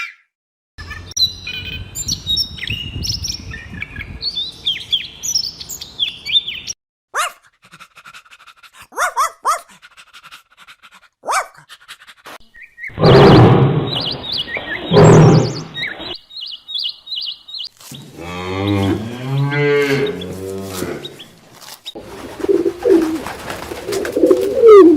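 A run of different animal calls, one clip after another. Birds chirp and twitter in the first few seconds, then come louder calls from other animals, among them a repeated call that rises and falls in pitch about three quarters of the way through.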